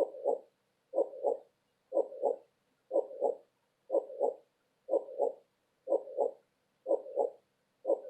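Heartbeat sound: a steady lub-dub, two close thumps repeating about once a second, with silence between beats.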